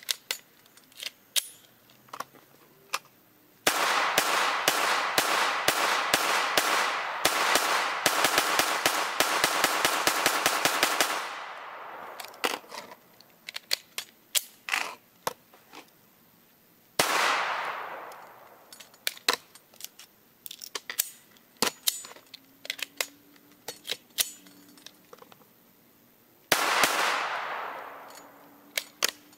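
AR-15-style rifle firing fast: a long string of shots that quickens, for about seven seconds, then two more loud shots or short bursts that ring out over a couple of seconds each. Metallic clicks of the rifle being handled come in between.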